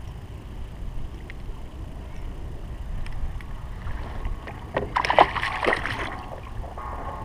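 A hooked crappie thrashing and splashing at the surface as it is scooped into a landing net, a short burst of splashing about five seconds in.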